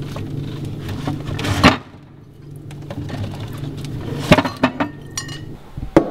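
Glass beer bottles clinking and knocking as they are handled and pulled from a cardboard six-pack carton in a refrigerator. There is a loud knock about a second and a half in, then a few sharp clinks near the end.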